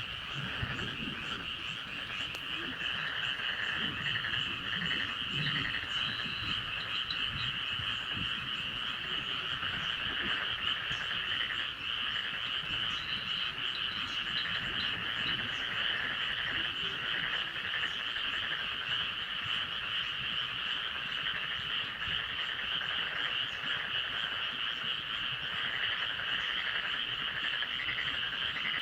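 Dense chorus of many frogs calling together, a steady overlapping pulsing croaking that never pauses.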